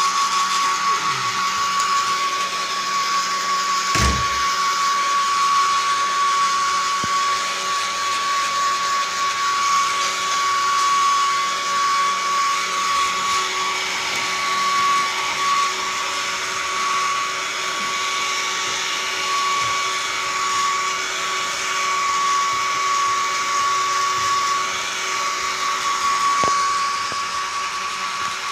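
Handheld hair dryer blowing steadily, a constant rush of air with a thin high whine. A single knock about four seconds in.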